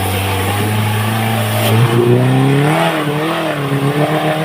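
Suzuki Jimny's engine pulling under load off-road. It runs steadily, its revs rise about two seconds in, then they waver and ease back down near the end.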